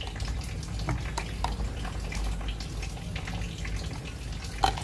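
Pickled cucumbers being lowered with metal tongs into a plastic jar of brine: light splashing with scattered small clicks and a sharper click near the end, over a steady low hum.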